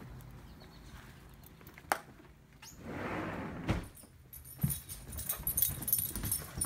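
A beagle's collar tags jingling and its claws clicking on the floor as it hurries through the house. A couple of knocks and a short rushing noise come about two to three seconds in, and the jingling and clicking pick up and run dense from about four and a half seconds.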